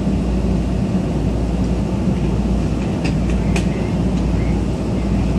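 Steady low hum and drone inside a Tokyu 8500 series train's passenger car as it stands held in the subway tunnel, with a few faint clicks about three seconds in and near the end.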